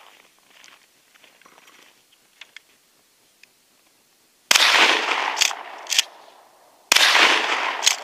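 Two blasts from a 12-gauge Remington 870 pump-action shotgun firing 00 buckshot, about two and a half seconds apart, each dying away over about a second. The pump is racked in between, making two sharp clacks, and is racked again after the second shot.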